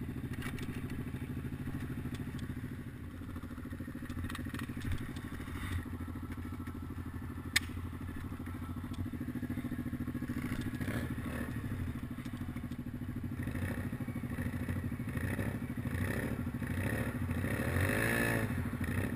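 Yamaha Grizzly 700 ATV's single-cylinder engine, fitted with an HMF Swamp Series XL exhaust, idling steadily. There is one sharp click about seven seconds in, and an engine revs up and down several times near the end.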